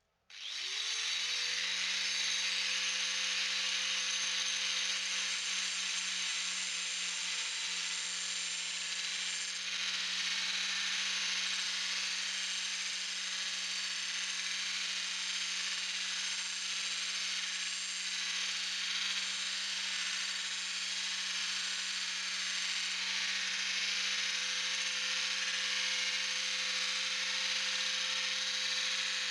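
Angle grinder switched on, its motor whine rising over the first second and then running steadily with a strong hiss, as it grinds new bevels into a worn kitchen knife blade.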